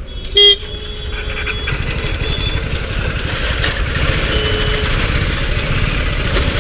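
A vehicle horn gives one short, loud toot about half a second in, followed by fainter horn toots over steady traffic and road noise.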